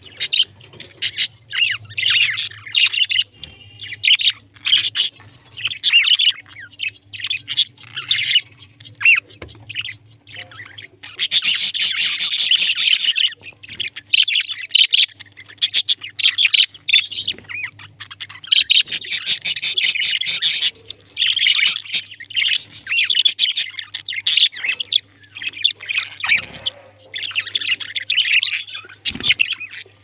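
A flock of budgerigars chattering and warbling nonstop, with two louder, harsher stretches of screechy calls about a third and two thirds of the way through. A faint steady low hum runs underneath.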